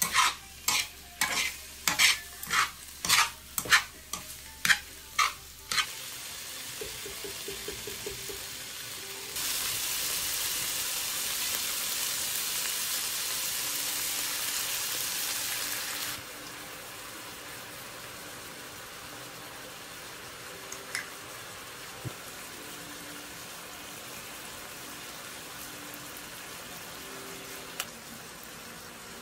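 Steel chopsticks clacking against a non-stick frying pan while stirring pork belly pieces, about two sharp clicks a second for the first six seconds. About nine seconds in, a loud sizzle starts as fish sauce hits the hot pan. It lasts about seven seconds, then drops to a steady quieter frying sizzle.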